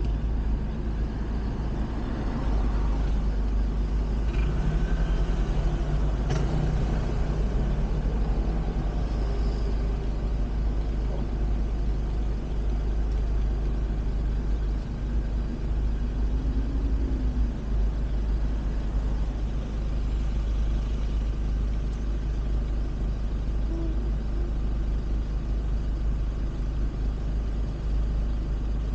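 Steady engine and road rumble heard from inside a van's cabin as it drives.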